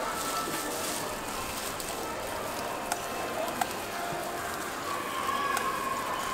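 Thin jianbing batter crepe sizzling steadily on a hot round griddle, with a couple of sharp clicks about three seconds in.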